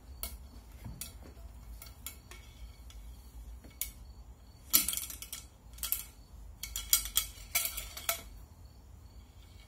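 A cleaning rod with a mop being worked through a shotgun barrel: irregular light metallic clicks, clinks and scrapes, with the loudest clusters of clinks in the second half.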